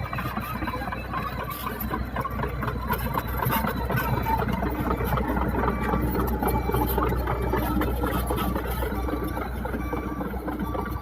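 Heavy-equipment diesel engine running steadily, a low drone under a busy mechanical rattle.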